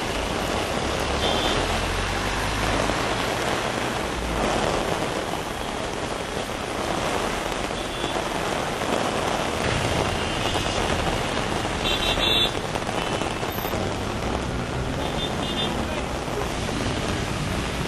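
Heavy rain falling on a flooded street, a steady hiss of rain on water, with vehicles driving through it. A bus engine rumbles low in the first few seconds as it passes close by.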